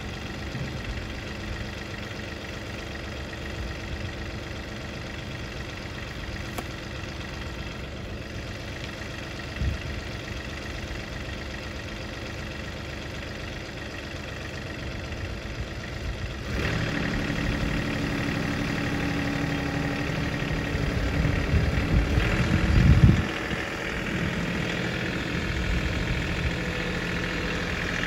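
John Deere 3038E compact tractor's diesel engine idling steadily, then throttled up and running louder from a little past halfway as the tractor moves off, with a brief louder surge a few seconds after.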